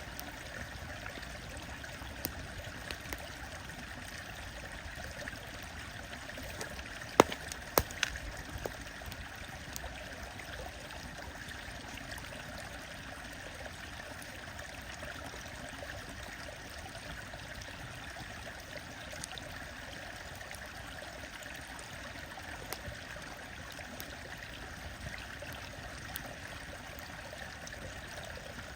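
A stream running steadily, with a wood fire crackling over it in scattered small snaps and a cluster of sharp pops about seven seconds in.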